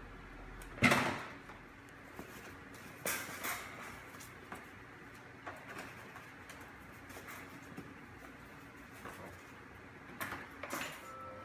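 Knocks and light clicks as a Jack Russell Terrier puppy moves about in a wire exercise pen. There is one loud knock about a second in, two more around three seconds, scattered small clicks between, and a few more knocks near the end.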